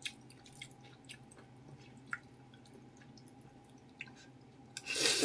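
Faint drips of broth and small clicks as noodles are twirled on a fork and lifted out of a bowl of soup, then a loud slurp of the noodles near the end.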